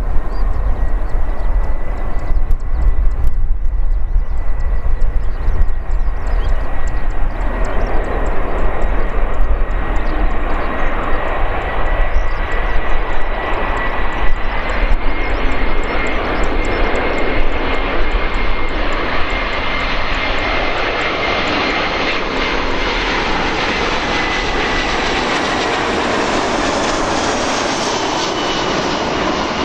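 An Airbus A340-300's four CFM56 turbofan engines at approach power as the airliner comes in to land. A steady whining fan tone sits over jet noise that grows fuller and brighter as the aircraft nears and passes close by. A gusty low rumble fills the first half.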